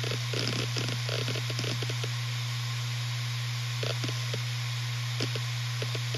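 Western Digital RE 4 TB (WD4000FYYZ) 7200 RPM hard drive running with a steady low hum from its spinning platters, over a light hiss. Its heads seek with quick irregular clicking, busy in the first second, sparse through the middle and picking up again near the end.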